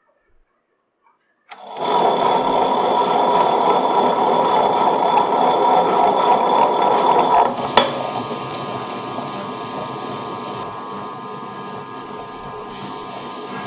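Butterfly Rhino Plus tabletop wet grinder starting up about a second and a half in, its cylindrical grinding stones running in the empty steel drum with a heavy sound. A little past halfway there is a single knock and the sound drops lower and smoother as soaked rice goes into the drum.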